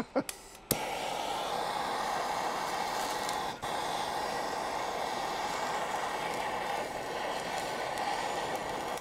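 Handheld gas torch clicks alight about a second in and burns with a steady hiss, melting beeswax into a pinhole leak in an oak barrel head to seal it. The torch cuts off suddenly at the end.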